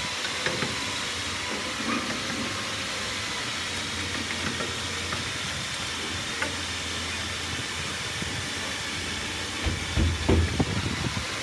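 Steady background hiss with a low hum. Near the end there is a short run of knocks on the teak shutter frame, struck with a hammer.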